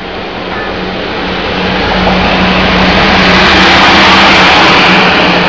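Taiwan Railways R-series diesel-electric locomotive pulling into the station alongside the platform: a steady engine hum with running noise that builds and is loudest about four seconds in as the locomotive passes close by.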